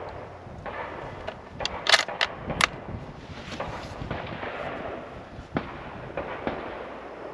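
Sharp cracks of rifle fire over steady outdoor noise: a quick cluster around two seconds in, the loudest of them near the middle, then a couple of fainter single reports later.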